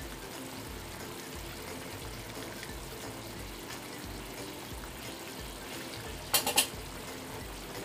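Thick tomato sweet and sour sauce simmering in a frying pan, stirred with a wooden spatula, giving a steady bubbling hiss. About six seconds in, three quick sharp clicks.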